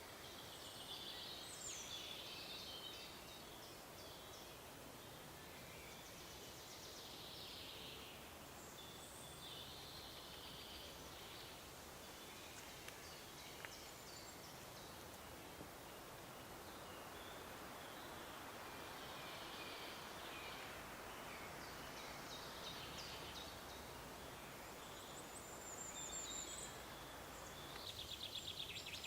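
Faint forest ambience with scattered songbird song phrases and calls over a steady background hiss; near the end a high thin trill and a rapid run of short notes.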